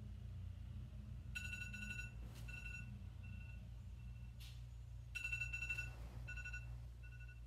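Electronic alert tones, each pattern a long beep followed by several short beeps, the pattern sounding twice, over a steady low hum.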